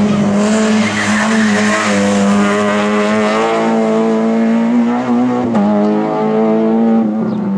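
Race car engine held at high revs through a slalom run, dipping briefly about five and a half seconds in, with tyres squealing in the first few seconds.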